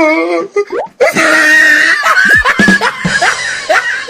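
A loud scream, then laughter in short rising bursts.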